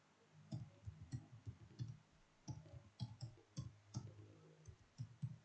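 Typing on a computer keyboard: a run of faint, uneven key clicks.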